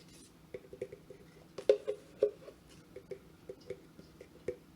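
A spoon clinking and tapping against a bowl while flour is spooned in: about a dozen light, irregular taps, each with a short ring, the loudest about two seconds in.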